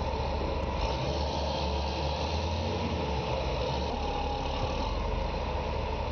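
Large diesel engine of heavy mining equipment running steadily.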